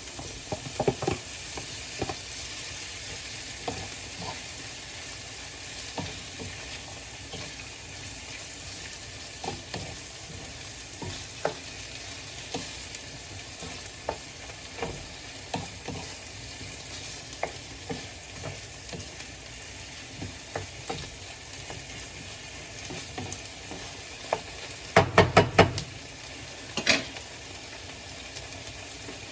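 Cubed chicken breast sizzling in hot oil with garlic and onions, stirred with a utensil that clicks and scrapes against the pan. Near the end a quick run of loud knocks against the pan.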